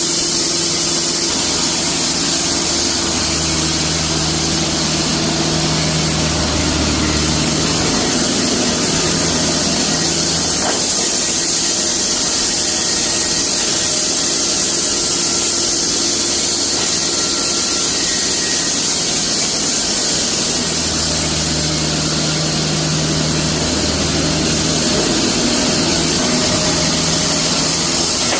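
Band sawmill running, a steady high hiss over its engine's drone, with a deeper hum that swells in twice and then drops away.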